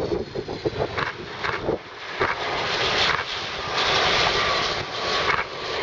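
Boeing 757 airliner landing: a steady jet rush as it touches down. The noise swells louder about two and a half seconds in as the jet rolls out on the runway, typical of reverse thrust.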